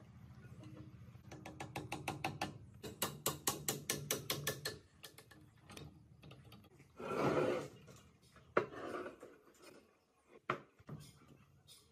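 Rapid run of sharp mechanical clicking, about six clicks a second for a few seconds, over a low hum at the start; then a short rushing hiss and a few separate sharp knocks.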